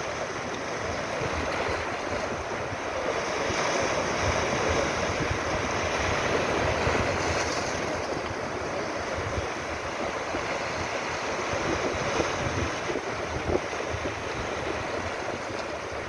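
Sea waves surging into a narrow rocky inlet and washing back over the rocks. The rush swells to its loudest about four to seven seconds in, as a wave breaks into white foam, then eases.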